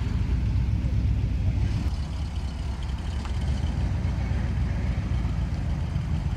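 Steady, deep exhaust rumble of a classic AMC Javelin with side-exit pipes rolling slowly past at low speed.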